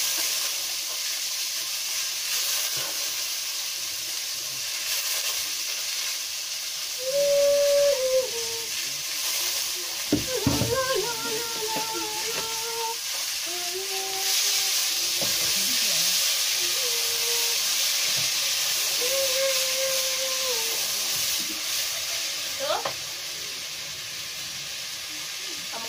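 Rice sizzling as it fries in hot oil in a pot on a gas burner, a steady hiss that grows louder midway. A woman's voice sounds short wordless notes on and off, loudest about seven seconds in, with a knock at about ten seconds.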